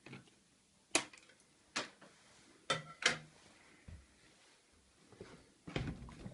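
Packaging being handled during an unboxing: a handful of short, sharp clicks and knocks at uneven intervals, several close together near the end.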